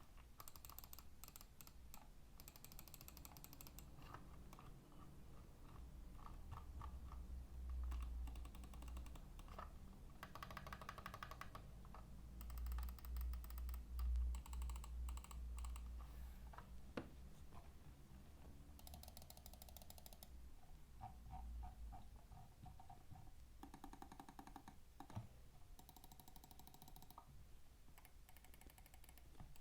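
Keyboard switches being typed on in bursts of rapid clicking, with short pauses between bursts, over a low steady hum.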